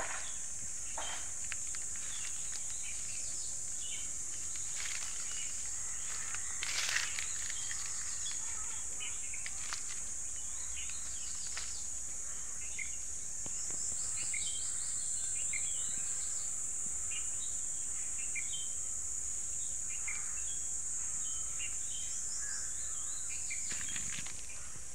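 Steady high-pitched drone of insects, a little louder from about halfway on, with scattered short chirps of small birds and one brief louder noise about seven seconds in.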